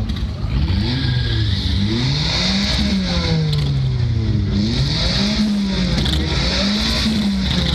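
Car engine revved up and down over and over, its pitch climbing and falling about once a second, with a high hiss coming and going above it.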